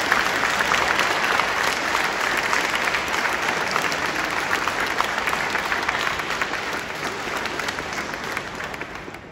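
Audience applauding: dense, steady clapping that thins out and fades away near the end.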